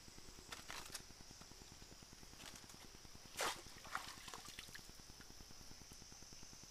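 A hand splashing in shallow stream water beside a water pipe: one sharp splash about three and a half seconds in, with a few smaller splashes and clicks around it, over a steady high-pitched hum.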